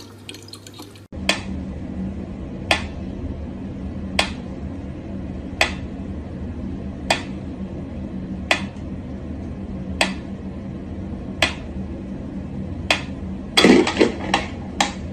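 Pyramid-shaped mechanical metronome ticking slowly and evenly, a sharp click about every second and a half. Near the end there is a quick flurry of louder clicks and knocks as a cat paws at it.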